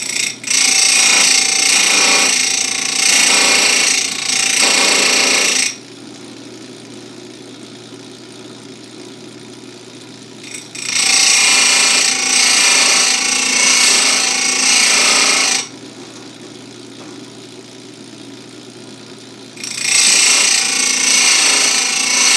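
Electric chainsaw-chain grinder with its wheel grinding the cutters of a full-chisel chain in three passes of about five seconds each, the last starting near the end. Between the passes the grinder motor hums steadily while the wheel spins free.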